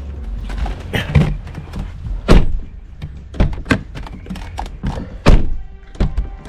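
Mercedes GLK 350 front door latch worked by its interior handle, with a run of clicks and thunks as the door is unlatched and shut again. Two heavy thunks stand out, about two seconds in and about five seconds in. The handle cable has just been reconnected and locked in.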